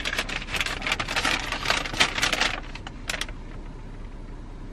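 Paper takeout bags crinkling and rustling as they are held up and shaken, busy for the first two and a half seconds with a short last rustle around three seconds in, then settling to a low hum.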